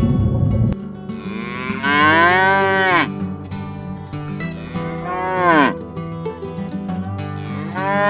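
An animal gives three long calls, each rising and then falling in pitch, over faint background music.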